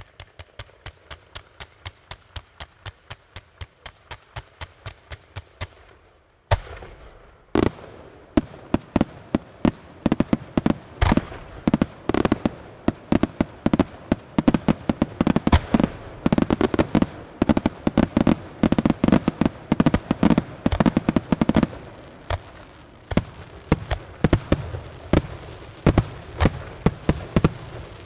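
Fireworks display: a fan of comets fires in a quick, even string of pops, about four a second. About six seconds in, a sudden loud bang starts a dense barrage of aerial shell bursts going off in rapid, irregular succession, which thins somewhat near the end.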